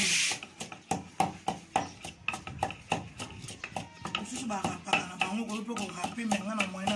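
Wooden pestle pounding in a wooden mortar: repeated knocks, a few a second, with a voice talking in the background.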